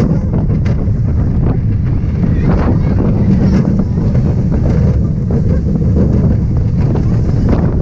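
A Zierer Force Two family roller coaster train running along its track, a steady low rumble with scattered clicks and rattles, under loud wind buffeting the microphone.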